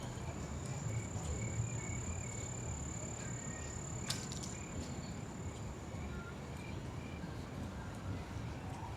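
A steady, high insect call, cricket-like, heard over the low rumble of city traffic. The call fades out about six seconds in, and there is a single sharp click about four seconds in.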